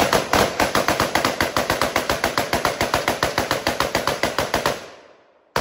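A 5.56 rifle fired in a long rapid string, about ten shots a second for nearly five seconds, then a second rapid string starts just at the end.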